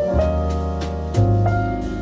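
Background music: piano chords over a deep bass note, a new chord struck about once a second.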